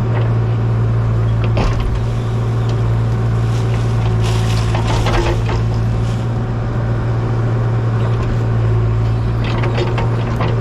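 An engine running steadily, with scattered metallic clanks and knocks.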